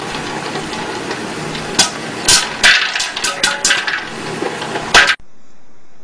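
Popcorn popping in an electric popcorn popper under a clear dome lid: about ten sharp pops over a steady hiss, cut off abruptly about five seconds in.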